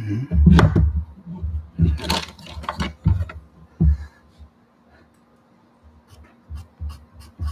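Pastel pencil tapping and stroking on gesso-coated watercolor paper mounted on an easel board, with knocks and rustles of handling. After a quiet stretch it settles into quick regular taps, about three a second, near the end.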